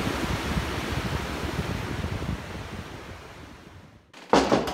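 Sea surf breaking on rocks, a steady rushing noise that fades out over about four seconds. Near the end comes one short, sudden loud thud.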